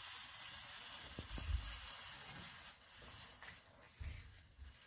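Spinach gravy simmering in a pan with a steady soft hiss, while it is stirred with a wooden spatula; a few soft knocks about a second in and again near the end.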